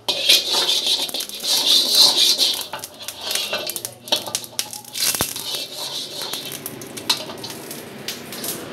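Pork fat sizzling and crackling in a hot wok. It starts suddenly, is loudest for the first two or three seconds, then settles into a quieter, steadier sizzle, with one sharp click about five seconds in.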